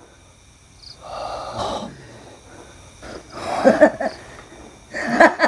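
A man's breathy hissing exhalation about a second in, followed by low, growl-like vocal sounds around the middle and again near the end.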